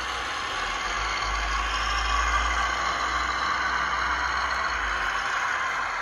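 Scale radio-controlled model truck running steadily, a constant whirring motor sound with a low rumble under it.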